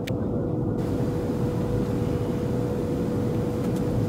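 Steady airliner cabin noise in flight: a dense low rumble of engines and airflow with a steady hum. There is a single click at the start, and the hiss brightens just under a second in.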